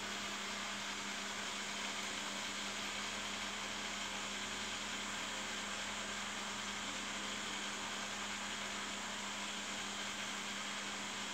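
Steady background noise: an even hiss with a constant low hum, unchanging throughout.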